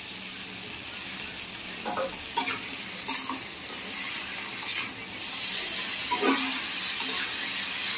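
Chow mein noodles sizzling in a hot wok with egg and vegetables as they are tossed with a metal spatula. The spatula scrapes and knocks against the pan several times.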